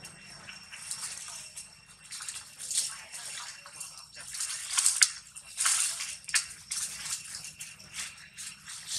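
Dry leaves crackling and rustling in irregular bursts as macaques scramble over leaf litter and tug at a leafy branch, loudest around five to six seconds in.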